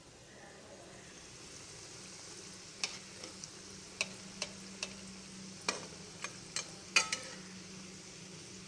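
Spinach twister dough deep-frying in hot oil, a steady sizzle that swells about a second in. About eight sharp clicks and taps sound through the middle, the loudest near the end.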